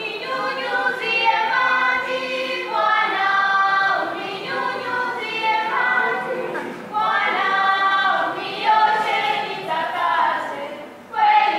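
A group of young voices singing together as a choir, in long held phrases with short breaks about six and a half seconds in and again near the end.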